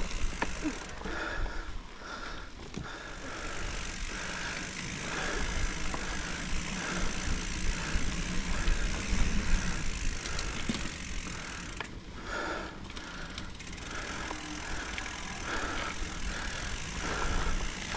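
Hardtail mountain bike riding along a dirt trail: the tyres roll on dirt and the bike rattles and clicks over the bumps, over a low rumble of wind and trail noise.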